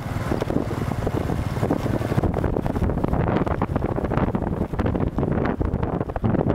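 Wind buffeting the microphone of a moving bike: a loud, rough rush of noise that gusts and flutters rapidly, heaviest in the low range.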